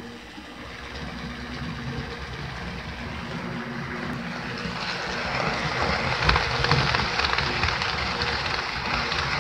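HO scale model train running on the track, growing louder as it approaches and passing close by from about five seconds in, its wheels clicking over the rails. Under it, the steady hum of the small electric motor that drives the rubber-band-driven oil pumper model.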